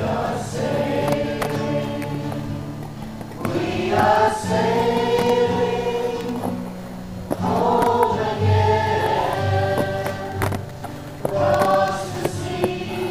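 Background music: a choir singing long sustained phrases over steady low notes, a new phrase starting about every four seconds.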